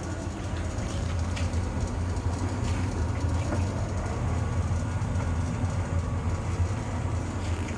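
Tumble dryer running with a steady low rumble and occasional faint scrapes: an abnormal metal-on-metal rubbing noise from the machine, a sign of a fault.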